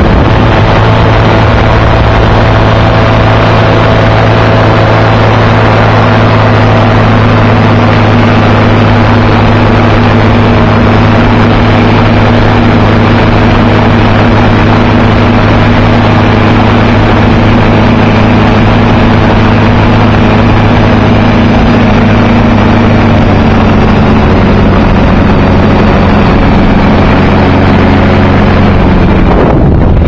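Ultralight trike engine running steadily in flight, with wind rushing over the microphone. The engine note eases down slightly about three-quarters of the way through.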